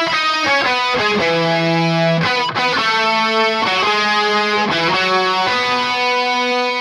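Outro music: a guitar playing a slow melody of ringing, sustained notes, ending on one long held note.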